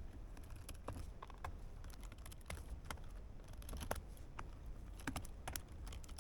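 Phillips screwdriver loosening the captive screws of a Lenovo ThinkPad E16 Gen 1's bottom cover: faint, irregular small clicks and scratches as the bit turns in the screw heads against the plastic case.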